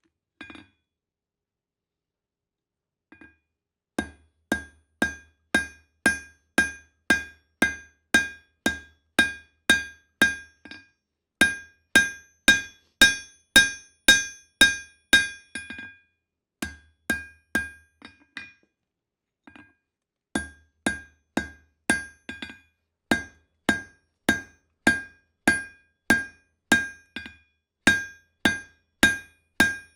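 Blacksmith's hammer striking hot steel on an anvil while forging a knife, in runs of steady blows about two a second, each blow ringing. The runs are broken by short pauses.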